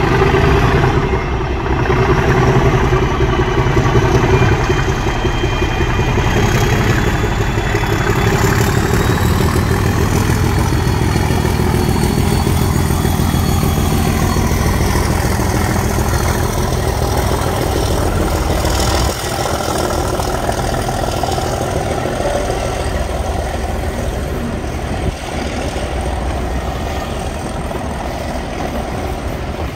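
Class 37 diesel-electric locomotive working hard as it draws a passenger train past: the steady heavy throb of its English Electric V12 diesel with a thin whistle that rises slowly over the first dozen seconds, then the coaches rolling by near the end.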